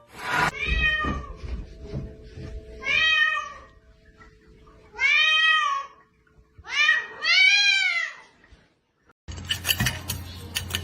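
Domestic cat meowing five times, each meow rising and then falling in pitch, the last two close together. Near the end, clattering over a low hum.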